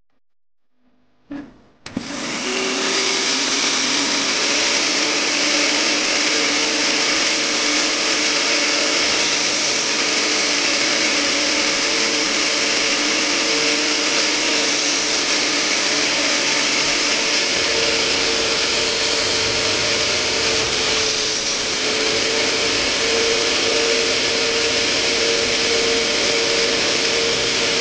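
Sofa-cleaning extraction vacuum switching on about two seconds in, then running steadily as its upholstery nozzle sucks over the fabric.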